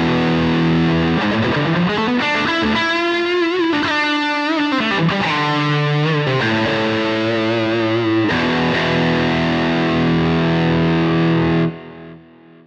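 Stratocaster-style electric guitar playing a lead line through a Soldano-style high-gain amp simulation with a 4x12 cabinet: heavily distorted sustained notes with pitch bends and vibrato. It stops about a second before the end, leaving a short fading tail.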